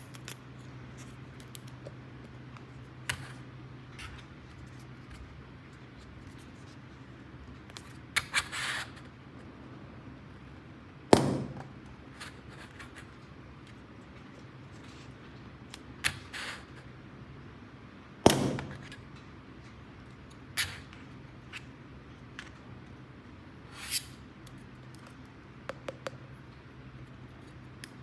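Plastic toy pieces being handled during an unboxing: scattered clicks, taps and short rustles, with two sharper knocks about eleven and eighteen seconds in. A faint steady low hum runs underneath.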